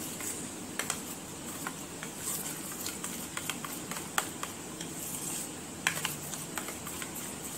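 A metal spoon stirring thick biscuit-and-milk batter in a steel bowl: a steady wet scraping, with several light clinks as the spoon strikes the side of the bowl.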